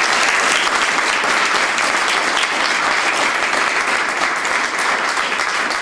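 A roomful of people applauding, steady and loud, fading out just after the end.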